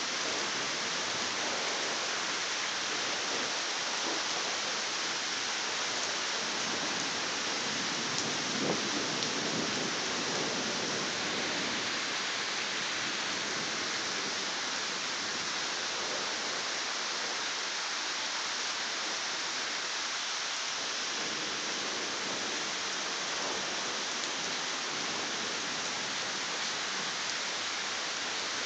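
Steady rain falling during a summer night thunderstorm, with a low rumble of thunder swelling about a third of the way in.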